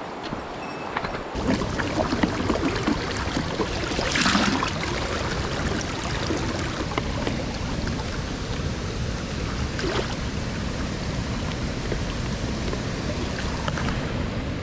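Mountain stream water rushing steadily, growing fuller and louder about a second in, with a brief louder surge of water about four seconds in.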